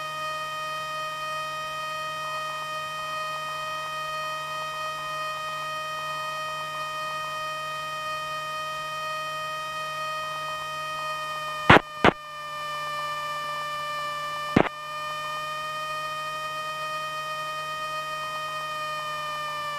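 Steady high whine with a stack of overtones on a Cessna Skyhawk's intercom audio feed, easing slightly lower in pitch near the end. Three sharp clicks cut in, two close together about twelve seconds in and one about two and a half seconds later.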